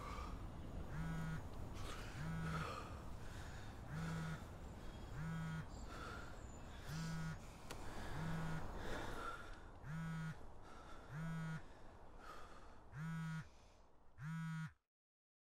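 A man's heavy, laboured breathing: a short groaning, voiced breath roughly once a second with breathy intakes in between, over faint street background, cutting off abruptly near the end.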